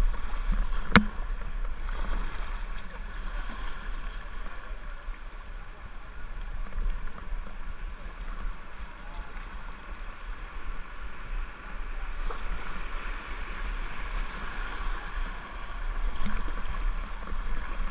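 River water rushing and splashing around a whitewater kayak as it is paddled downstream, over a low steady rumble on the microphone. A single sharp knock about a second in.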